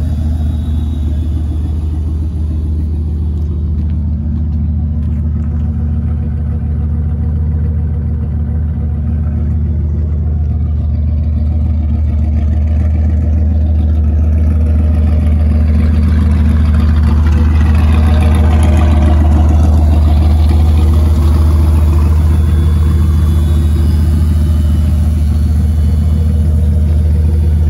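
A 1992 Fox-body Mustang's engine running at a steady, even drone, as when driving at a constant speed, growing a little louder through the middle.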